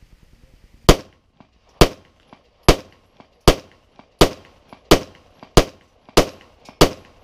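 Smith & Wesson SD9VE 9mm pistol firing nine shots of 115-grain full metal jacket in a steady string, a little under a second apart and quickening slightly. Each is a sharp crack that trails off briefly.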